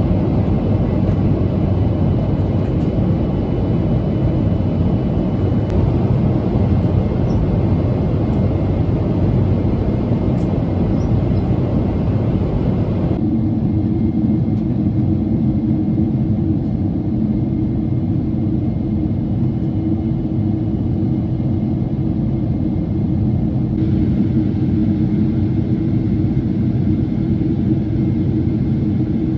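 Boeing 777-300ER cabin noise in flight on the final descent, heard from a window seat: a steady, loud low rumble and rush of the GE90 engines and airflow over the fuselage.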